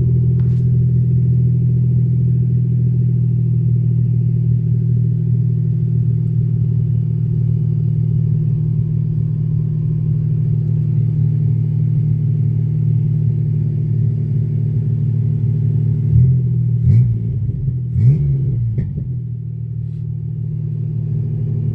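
1993 Chevy S10 pickup engine running at a steady idle after a push-button start. About three-quarters of the way through, the pitch wavers briefly with a few sharp knocks or blips, then it idles on a little quieter.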